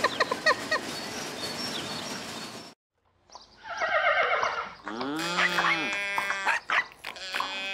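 Cartoon sound effects: a busy run of short chirps cuts off abruptly, and after a moment of silence a horse whinnies, followed by further farm-animal calls.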